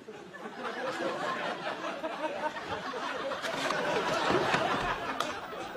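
Studio audience laughing, swelling over the first seconds to its loudest about four seconds in.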